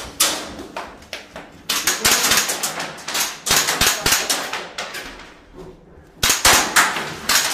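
Rapid gunfire from M4A1 carbines: one shot right at the start, then a fast string of shots from about two to four seconds in, and another string starting about six seconds in.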